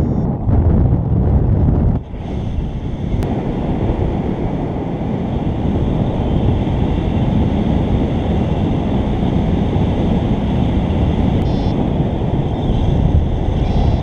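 Strong airflow buffeting the microphone during paraglider flight: a steady, loud wind rush with a brief lull about two seconds in.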